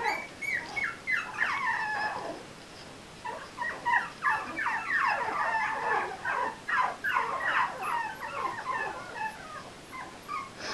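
A litter of four-week-old puppies whimpering and yipping: many short, high-pitched cries overlapping, with a brief lull about two seconds in before they pick up again and thin out near the end.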